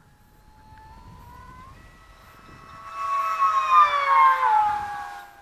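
Electric hotliner's Turnigy 2845 3650kv brushless inrunner motor and small APC prop whining on a high-speed pass. The whine grows louder for about three seconds, then drops in pitch as the plane goes by and fades near the end.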